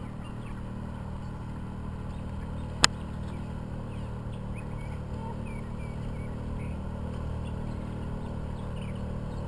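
Outboard motor idling with a steady low drone. A single sharp click about three seconds in.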